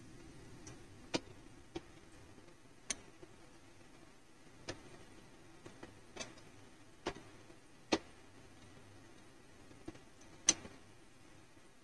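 Faint, irregular clicks of a steel slotted spoon tapping the frying pan as fried sooji balls are lifted out of the oil, about nine taps spaced unevenly, over a faint steady low hum.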